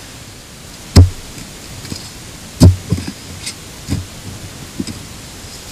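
A short-handled digging tool chopping into forest soil: a handful of dull strikes roughly a second apart, the first two the loudest.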